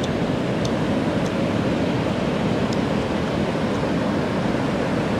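Steady, even rush of ocean surf breaking offshore.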